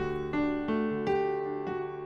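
Background music: a slow keyboard melody, single notes struck about twice a second and left to ring.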